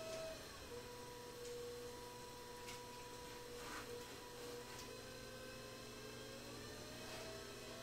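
Electric pottery wheel motor running as stiff porcelain is coned up on it: a faint steady hum and whine that drops in pitch about half a second in and rises back near the end.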